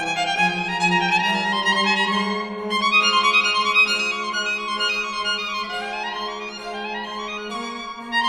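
Background instrumental music led by a violin, playing quick runs of notes up and down over a held low note.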